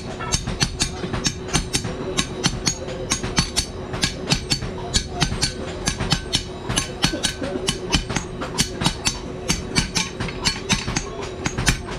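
Hand hammers striking metal on an anvil, knife blades being forged: a fast, uneven run of sharp ringing blows, about four a second.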